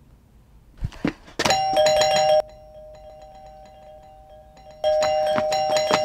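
Electronic doorbell ringing a steady two-note tone, starting after two short thumps about a second in, cutting off suddenly a second later, and starting up again after a gap of a little over two seconds.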